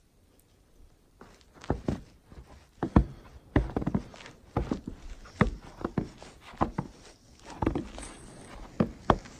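Footsteps on the snow-dusted plank deck of a suspension footbridge, starting about a second in and going on at a steady walking pace.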